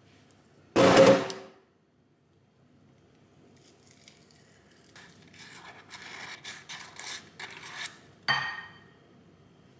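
Kitchenware being handled: a sharp ringing clink of something set down about a second in, a few seconds of scraping and rattling, then another ringing clink near the end.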